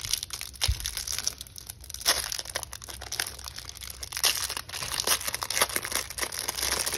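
Clear plastic wrapper of a pack of trading cards crinkling and tearing as it is picked and peeled open by hand, in a run of short, sharp crackles.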